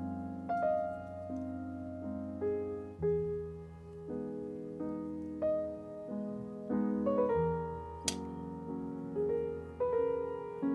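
Gentle, slow piano background music, with one sharp click about eight seconds in.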